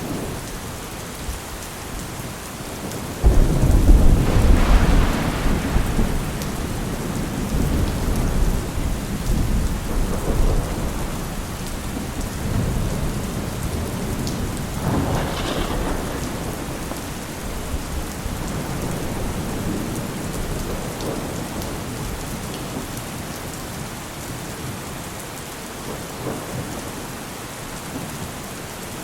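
Heavy rain falling steadily, with thunder. A loud thunderclap breaks in suddenly about three seconds in and rumbles for a few seconds, and a weaker rumble follows around the middle.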